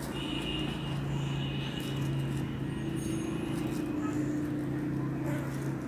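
Steady low hum of a running engine, with a faint high whine over it through the first half.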